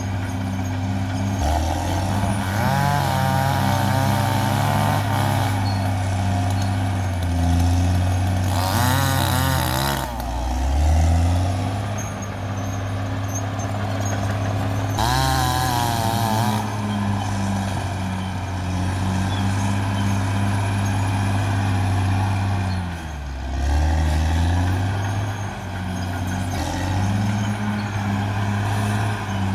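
Caterpillar D6R XL bulldozer's diesel engine running under load, its pitch dropping and climbing back twice, with three bursts of higher-pitched wavering mechanical noise over it.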